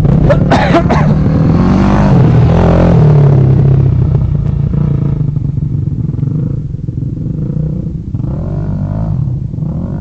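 Dirt bike engines revving as the bikes ride off across the track. The engine sound is loudest and rising in pitch over the first four seconds, then fades, with lighter revs from a bike further off near the end.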